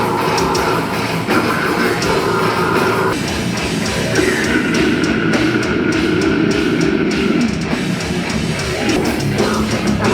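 Loud heavy music in a hardcore or metal style, with distorted guitar and drums playing throughout.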